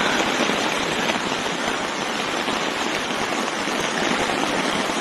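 Heavy rain and fast-flowing floodwater making a steady, unbroken hiss.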